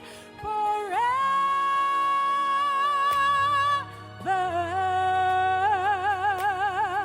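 A solo voice singing a worship song in two long held notes, each scooped up into from below, the second wavering in a wide vibrato near the end. A low sustained accompaniment comes in about halfway through.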